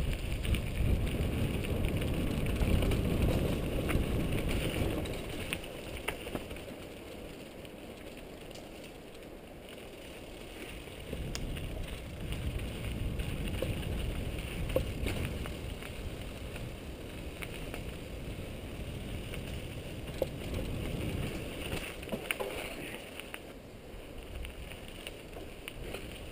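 Mountain bike ridden over dirt singletrack, heard from a camera on the bike or rider: tyre rumble and wind buffeting on the microphone, with occasional sharp clicks and rattles from the bike. It is loudest in the first few seconds and eases off around eight seconds in.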